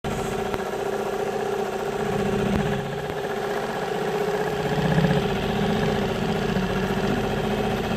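Small boat's engine idling steadily, swelling slightly a couple of times.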